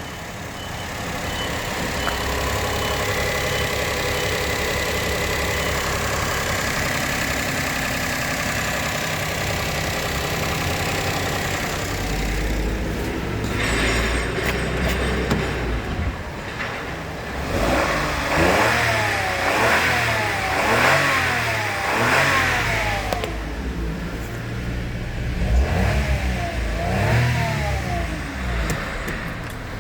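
Toyota 1KR-FE 1.0-litre three-cylinder petrol engine idling steadily, then revved up and down repeatedly in a series of quick blips during the second half, as in a running test of a used engine at idle and mid revs.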